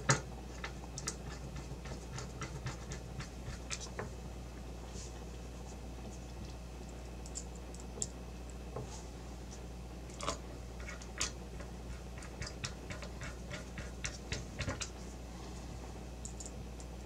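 Small screwdriver and screws clicking and scratching against a graphics card's metal backplate as screws are started by hand into their threads: light, irregular ticks in clusters, one group near the start and another from about ten to fifteen seconds in.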